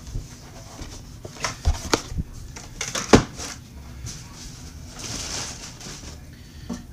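Cardboard box and styrofoam packing being handled as the box is opened: a few sharp knocks and scrapes, the loudest about three seconds in, then a stretch of soft rustling around five seconds in.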